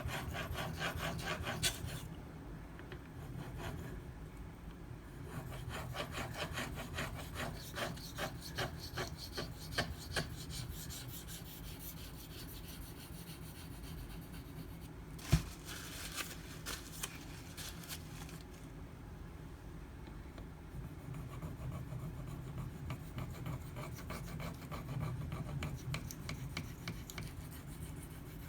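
Knife blade of SG2 powdered steel stroked back and forth on a Shapton Pro 5000-grit whetstone with a little slurry on it: runs of quick scraping strokes with short pauses between them. A single sharp tap about halfway through is the loudest sound.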